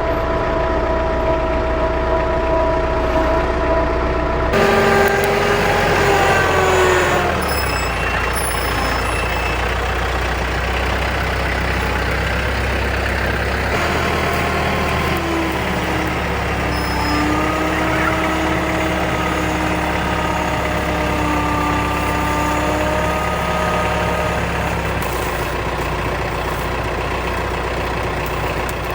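A motor vehicle engine running steadily with a low hum and a few whining tones that drift in pitch. The sound changes abruptly several times.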